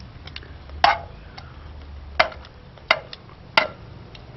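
Metal kitchen tongs clicking against a frying pan as a fish fillet is laid in and arranged: four sharp clicks spread over a few seconds, with a few fainter taps.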